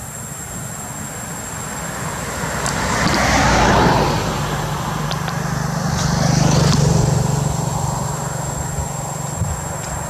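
A motor vehicle passing: engine drone and tyre noise swell up and fade away, loudest about four seconds in and again near seven seconds.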